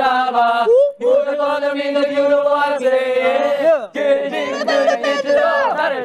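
Sung vocals holding long notes, with little or no instrumental backing. The singing breaks off and restarts abruptly about a second in and again just before four seconds, as at edit cuts.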